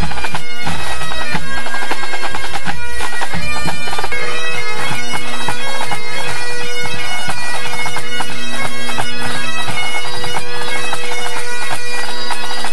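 Great Highland bagpipes of a pipe band playing together during the band's warm-up and tune-up. Steady drones sound under a quick chanter melody full of gracenotes, loud and close.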